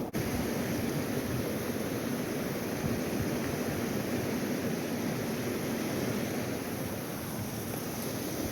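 Steady rushing of a flowing river, an even noise with no distinct events.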